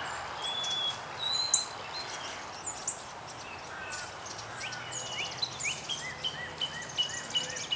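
Several songbirds chirping and singing together: short whistled notes and chirps, a run of repeated downward-slurred notes in the second half, and a fast buzzy trill higher up, over a steady outdoor hiss.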